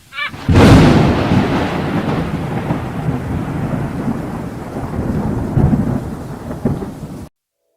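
Thunder sound effect: a loud rumble that starts sharply about half a second in, rolls on with small swells for about seven seconds, and cuts off suddenly.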